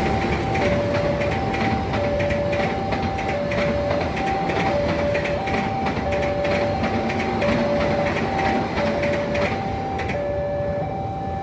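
Railway level-crossing alarm sounding an electronic two-tone signal, alternating between a lower and a higher tone about every two-thirds of a second. Under it is the rumble and rhythmic clatter of a passing train, which drops away about ten seconds in.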